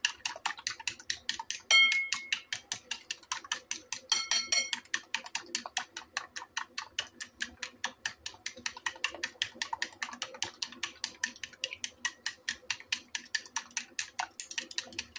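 Wooden chopsticks beating eggs in a ceramic bowl: rapid, steady clicking of the sticks against the bowl, with a couple of ringing strikes on the bowl about two and four seconds in.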